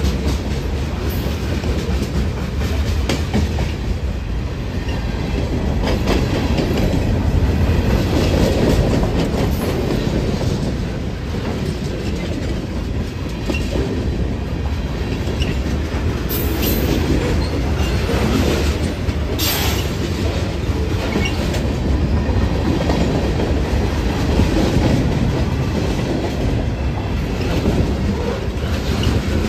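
Freight cars rolling past close by: a steady low rumble with the clickety-clack of wheels over rail joints, and twice, past the middle, a brief high-pitched wheel squeal.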